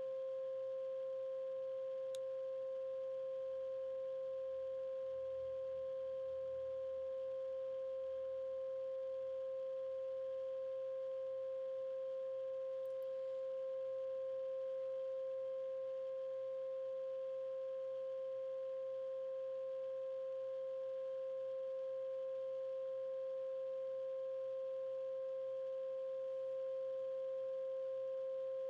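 Steady 528 Hz tone holding one pitch without a break, with a fainter overtone an octave above.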